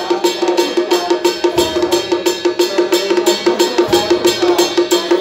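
Taiwanese temple procession music: fast, even percussion strokes about five a second over a steady held tone and a wavering melody, with a deep drum thump twice.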